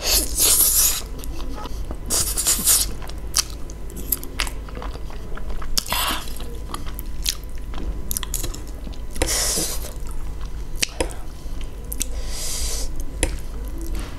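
Close-miked chewing and wet mouth clicks of someone eating a mouthful of cheesy spicy instant noodles. Five louder hissing bursts of under a second each come every few seconds.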